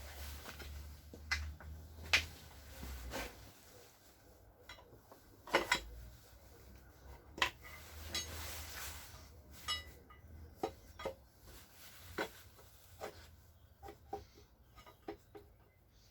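Irregular metallic clinks and taps of hand tools and parts as a piston and connecting rod are worked loose from an engine block, about a dozen sharp knocks spread out.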